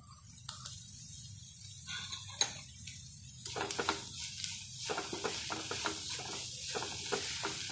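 Onion masala sizzling in a non-stick kadai, with a few light knocks at first, then a wooden spatula scraping and stirring through it in quick repeated strokes from about three and a half seconds in.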